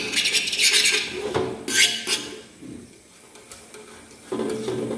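Rapid patting of soft semolina dough onto a hot upturned copper pan while a dioul pastry sheet is being laid down. The patting stops about a second in, and a short, sharp scrape of a knife against the pan's rim follows about two seconds in.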